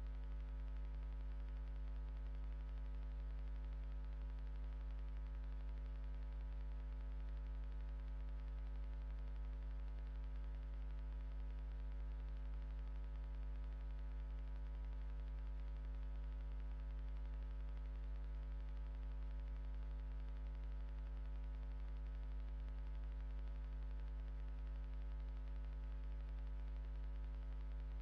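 Steady electrical mains hum with many overtones and a light static hiss, the noise of a CCTV recording's audio line with no other sound picked up.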